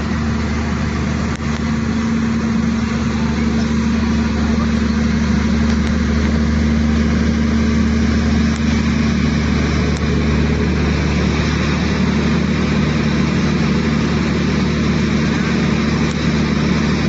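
A steady, unchanging engine or motor hum at a constant low pitch, like a vehicle's engine running at an even speed.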